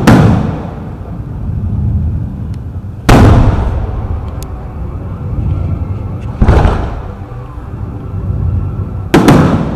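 Aerial firework shells bursting with sharp booms: one at the start, one about three seconds in, one about six and a half seconds in, and a quick double near the end. Each boom fades into a low rumble before the next.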